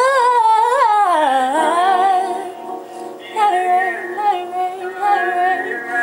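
A woman singing a gospel song, drawn-out notes sliding up and down in runs, with a short break about halfway before the voice comes back in.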